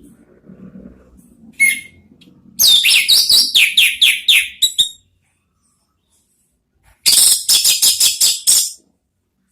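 Orange-headed thrush singing in fast, chattering runs of high notes, each note a quick downward slur, about four a second. The bird sings one short note, then a run of about ten notes about two and a half seconds in, and a second run of about eight near the end.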